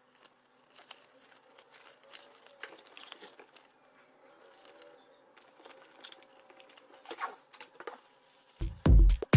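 Faint, scattered taps and crinkles of a phone's packaging being handled. Loud electronic dance music with a heavy bass beat cuts in near the end.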